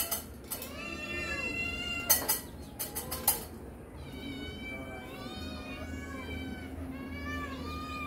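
Several kittens mewing over and over, many short high calls that rise and fall in pitch and overlap one another, with a few sharp clicks around two and three seconds in.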